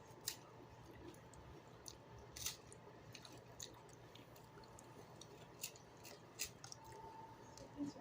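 Quiet eating sounds: faint chewing with a few short, soft clicks and smacks spaced a second or so apart.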